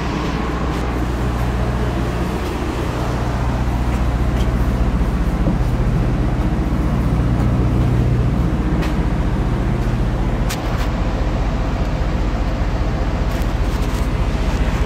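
Interior of a Solaris Urbino 18 III articulated city bus under way: a steady low engine drone with road and tyre noise, growing a little louder over the first few seconds, with a few light clicks and rattles from the cabin.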